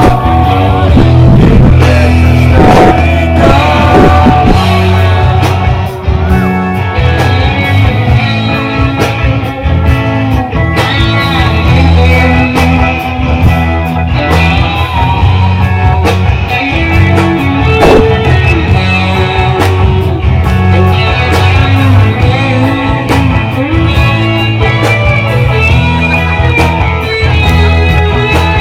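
Rock music with guitar over a steady, loud bass line.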